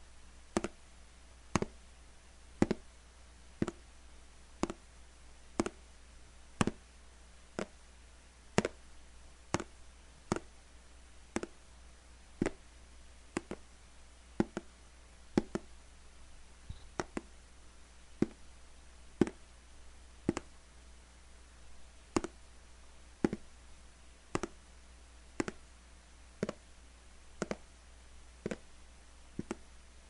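Footsteps at a steady walking pace, about one step a second. Each step is a short, sharp tap, and a few come close together as a quick double step.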